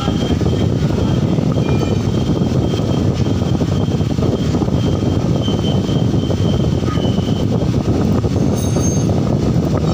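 Steady, loud mechanical rumble, with a faint high whine that comes and goes.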